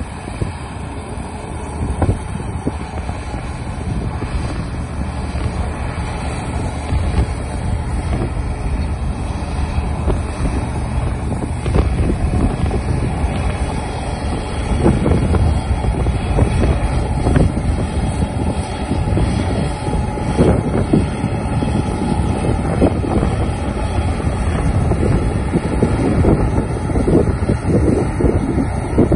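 John Deere 1170 combine harvester running while cutting and threshing wheat, a steady machine noise that grows louder about halfway through as it comes close alongside. Wind buffets the microphone.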